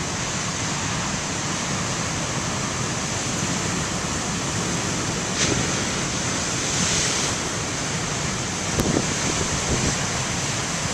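Heavy ocean surf breaking, a steady wash of noise with a sharper crash about five seconds in and a broader swell about seven seconds in, mixed with wind buffeting the microphone.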